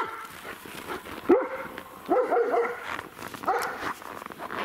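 Small dog yapping in short bursts of high barks, one or two at a time and then three in quick succession, set off by fireworks and firecrackers going off in the distance.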